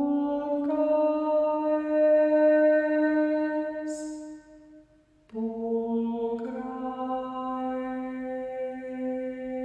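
A cappella singing of a Latin hymn in long held chords tuned in just intonation, voices layered into sustained harmonies. The first chord ends about four seconds in with a short hiss, and after a brief near-silence a new held chord begins.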